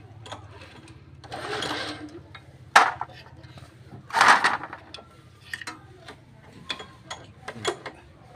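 Robin (Subaru) EX17 single-cylinder engine running with a steady, fast low pulse, with scattered clicks and knocks and two louder noisy bursts over it.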